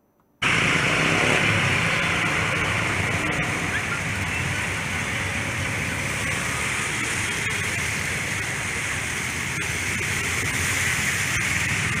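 Steady rushing noise of floodwater spilling across a highway, mixed with traffic driving through it. It starts abruptly about half a second in.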